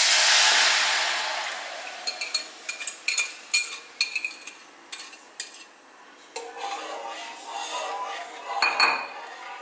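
A thin sauce poured into a hot frying pan sizzles loudly at first, the sizzle fading over a couple of seconds. Then a metal wire whisk clinks and scrapes against the ceramic bowl and the pan, with a louder clank near the end.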